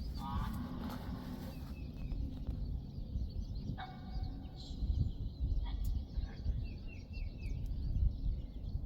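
Birds calling: scattered short high chirps, with a quick series of four near the end, over a steady low rumble.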